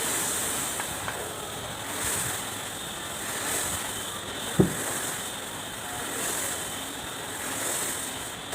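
Steady background hiss with a single short, sharp knock about halfway through, the kind a metal part or tool makes when set down or tapped.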